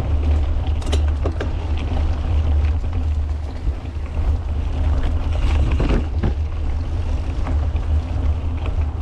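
Wind rumbling on an action camera's microphone as a mountain bike rolls along a dirt trail, with tyre noise and scattered clicks and rattles from the bike.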